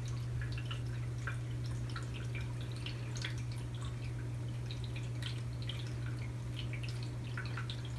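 Steady low hum with faint, irregular small ticks and drips scattered over it.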